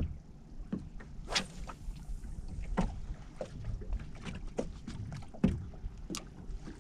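A lure cast with a spinning rod and reel: a click, a brief swish about a second and a half in, then scattered light clicks and knocks as the reel is handled, over a low rumble of wind and water around the small boat.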